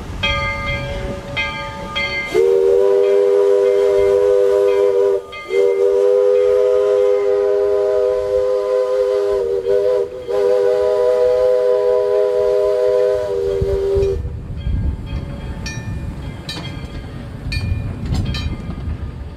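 Steam locomotive No. 25's chime whistle blowing a chord in four blasts, long, long, short, long, the grade-crossing signal, with the locomotive bell ringing steadily before and after the whistle and the train rumbling along the rails.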